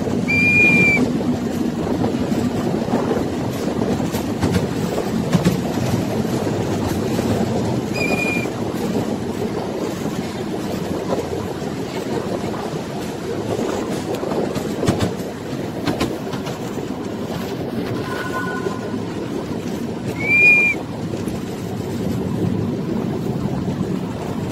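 Train rolling along the track: a steady rumble with wheel clatter, broken three times by a brief high squeak, the loudest one near the end.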